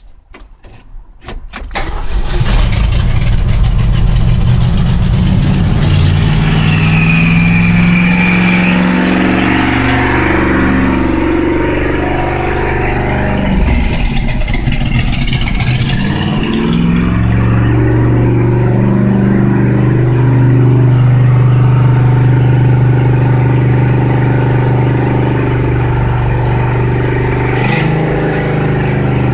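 1976 Ford F-350's carbureted engine cold-started after two years unstarted: it cranks on the starter for a second or two, catches, and runs unevenly with its speed rising and falling, with a brief high squeal about seven seconds in. From about halfway it settles into a steady fast idle, set high because the idle has not yet been turned down and the choke is not hooked up.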